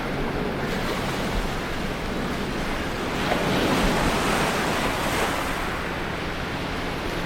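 Steady rush of water, swelling for a couple of seconds about three seconds in, with wind on the microphone.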